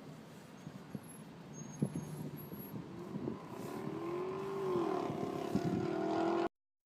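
Car engine heard from inside the cabin, its note rising and falling as it speeds up and eases off and growing louder over the last few seconds, before the sound cuts off suddenly.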